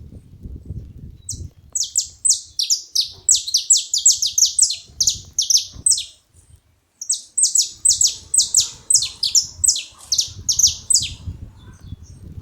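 Saffron finch calling: a rapid series of sharp, high notes, each falling in pitch, about five a second, in two bouts with a short break near the middle. A low rumble runs underneath.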